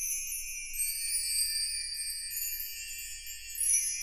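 A sparkling chime-and-bell sound effect: a high-pitched tinkling shimmer with no low notes, swelling slightly near the end.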